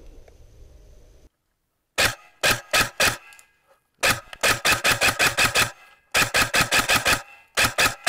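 Airsoft rifle firing: a few single shots, then two rapid strings of about seven or eight shots a second and a short pair near the end. Each shot is a sharp crack, with no background sound between them.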